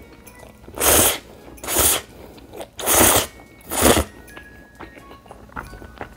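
Close-miked slurping of instant noodles, four loud slurps about a second apart.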